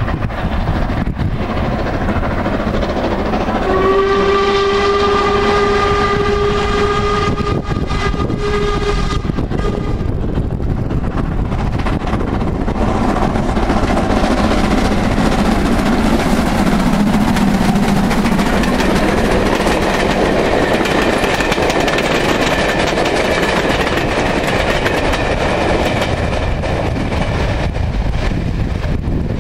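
Steam locomotive whistle, an LMS 8F 2-8-0, sounding one long steady blast of about six seconds, then the engine and train of Royal Mail travelling-post-office vans running with a continuous rumble that grows louder as the train nears and passes.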